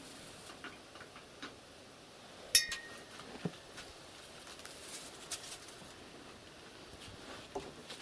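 Faint outdoor quiet broken by scattered light ticks and clicks. About two and a half seconds in there is one sharp click with a brief high ring after it, the loudest sound here, and smaller clicks follow about a second and about three seconds after it.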